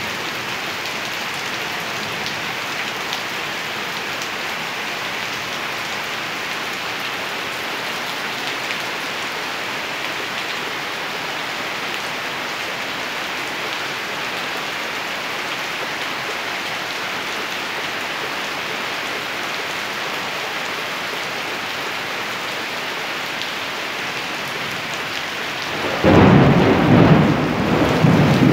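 Steady heavy rain hissing, then about two seconds before the end thunder breaks in suddenly and rumbles loudly over it.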